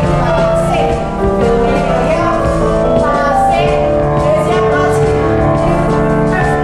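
Music with a sung melody over sustained instruments and a steady low beat.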